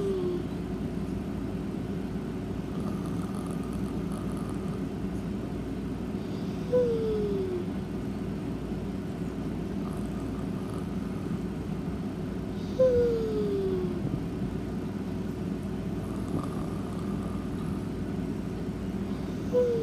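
A sleeping pet snoring: a short whistling snore that falls in pitch, three times about six seconds apart, over a steady low background hum.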